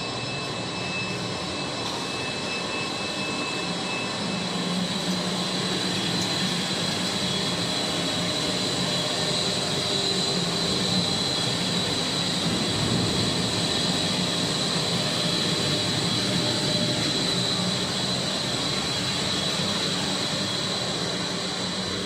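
Steady industrial running noise of a microwave medical-waste sterilization plant in operation: a low hum under a continuous high whine, swelling slightly in the middle. A second, fainter high tone in the whine stops about four seconds in.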